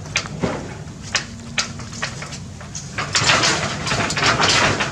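Scattered sharp knocks on a sheet-metal roof, then about two seconds of louder dense rattling and scraping near the end as macaques clamber across the metal.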